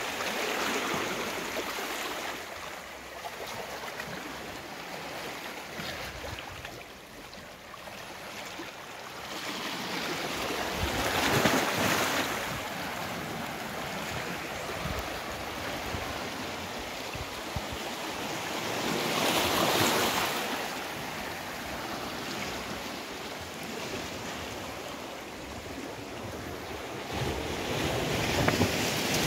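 Small sea waves washing in and lapping among shoreline boulders: a continuous wash of water that swells louder four times as waves break over the rocks.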